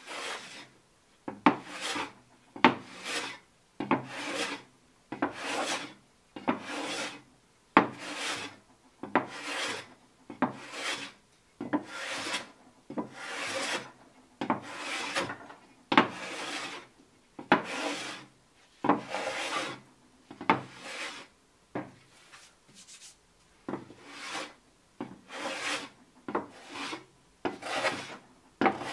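Hand plane cutting across the end grain of a wood slab, one stroke after another at about one a second. Each stroke is a short rasping cut that starts sharply and trails off.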